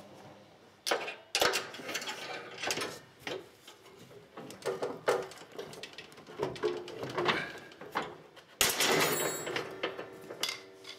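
Irregular metal clicks, taps and short scrapes as wire hairpin retaining clips are worked off the pins holding the cutting deck of a Husqvarna CTH151 lawn tractor, with a longer rattle near the end.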